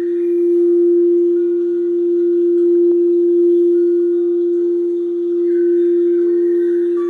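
Quartz crystal singing bowl tuned to F, sounding one loud, steady, pure tone that swells and fades slowly in waves, with fainter higher ringing tones coming and going above it.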